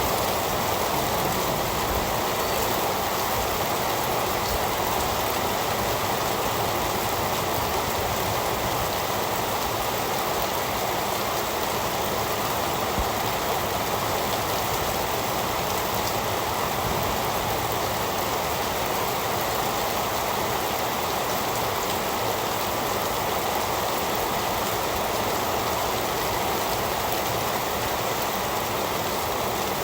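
Heavy rain falling steadily, a dense, even patter with no breaks and no thunder.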